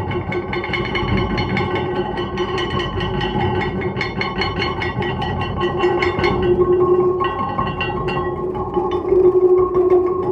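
Serpentine stone plates resting on a bass drum, ringing with two sustained tones and bright overtones under a dense patter of rapid light strikes. The low ringing tone swells louder about two-thirds of the way in and again near the end.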